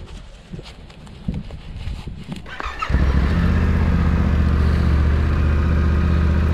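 Yamaha Ténéré 700's parallel-twin engine idling steadily. It comes in abruptly about three seconds in, after a few soft clicks and rustles of glove and gear handling.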